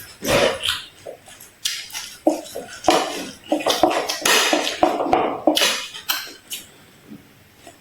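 Kitchen utensils and dishes clattering: a quick, irregular run of knocks and scrapes that thins out near the end.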